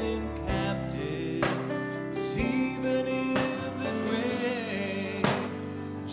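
Slow gospel worship music: chords on a Kawai keyboard struck roughly once a second under a singing voice holding long, wavering notes.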